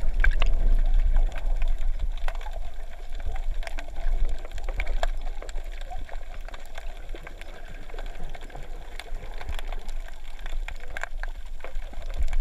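Underwater sound through a GoPro camera's waterproof housing: a steady low rumble with scattered clicks and crackles and a faint steady hum.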